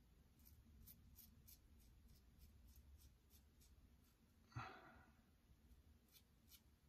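Faint, short scrapes of a double-edge safety razor (RazoRock Switch with a Derby Extra blade) cutting stubble on the upper lip, several in the first two seconds and a couple more near the end. About four and a half seconds in, a short, louder breath.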